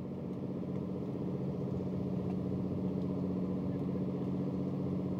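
Tour boat's engine running steadily with a low hum, getting a little louder in the first second.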